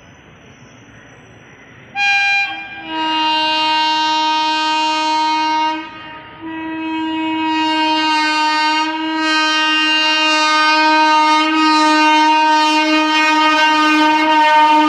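Horn of approaching twin WAG-7 electric locomotives on a BOXN freight. A short toot about two seconds in, then a long blast, a brief break, and another long blast held on, getting louder as the train nears.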